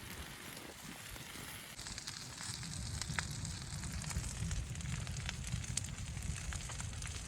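Wood fire crackling in a wood stove: scattered sharp pops over a steady hiss, with a low rumble underneath that grows louder about two seconds in.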